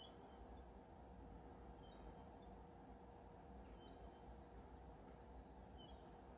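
A small bird singing a short, high phrase of a few quick notes, repeated about every two seconds, faint against quiet evening background with a steady low hum.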